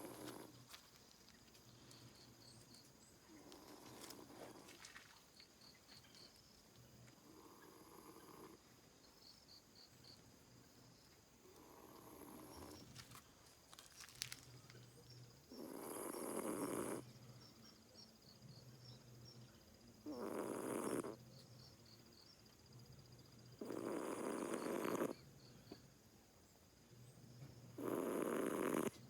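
A sleeping cat snoring loudly, one rasping snore about every four seconds. The snores are faint at first and much louder from about halfway through.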